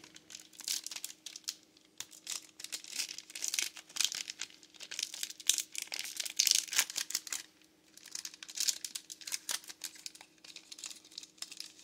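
Foil wrapper of a trading card pack crinkling and tearing as it is ripped open by hand and the cards are slid out, in irregular crackles.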